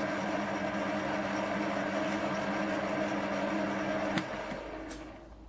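A small electric motor running steadily with an even hum. About four seconds in there is a click and the motor winds down, its sound dying away over the next second, with another click shortly after.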